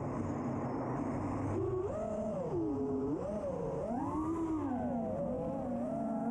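FPV racing quadcopter's brushless motors whining, the pitch swooping up and down again and again as the throttle changes through a dive and pull-out. A rushing noise over the first second and a half.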